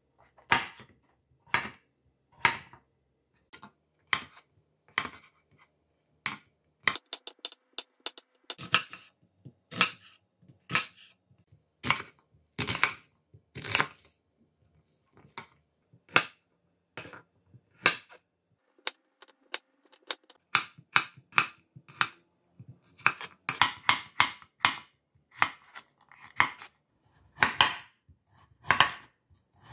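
Chef's knife chopping vegetables (mushroom, onion, carrot) on a wooden cutting board. Separate sharp knocks of the blade on the wood, some spaced out and some in quick runs.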